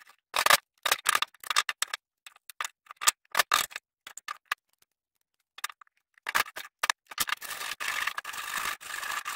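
Hammer tapping a wood chisel in a run of short, sharp knocks, chipping out the wood left in a drilled hole in a wooden block. Near the end, a rough scraping as a screwdriver digs chips out of the hole.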